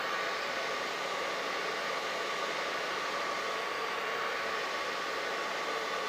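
Hair dryer running steadily: an even hiss of blown air with a constant high motor whine.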